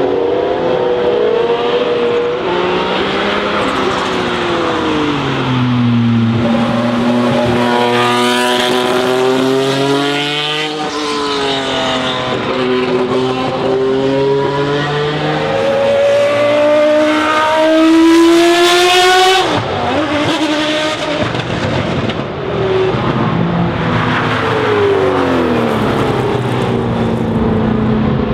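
Racing car engines at high revs, the pitch climbing through the gears and dropping back at each shift as the cars pass by; about two-thirds of the way in the pitch falls away abruptly.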